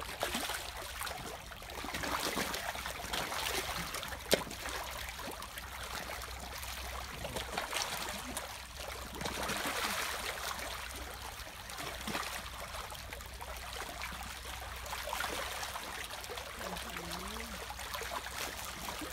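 A crowd of fish thrashing and splashing at the water surface in a feeding frenzy: continuous churning and splatter that swells and eases, with a sharp splat or click about four seconds in.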